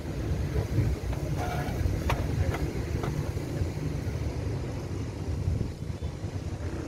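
Steady low outdoor rumble, with a few faint clicks about two seconds in.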